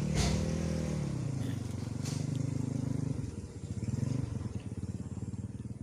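Small engine running, its pitch easing down and rising again about three seconds in, with a couple of sharp clicks.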